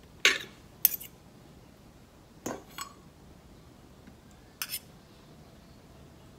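Metal fork and spoon clinking against dishes while food is served onto a plate. There are a handful of short, sharp knocks: the loudest about a quarter second in, another near one second, two more around two and a half to three seconds, and a last one about four and a half seconds in.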